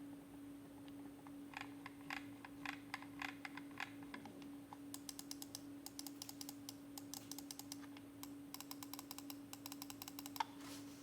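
Logitech Pro X Superlight 2 gaming mouse buttons clicking: a few separate clicks, then two fast runs of rapid clicking, ending with one sharper click.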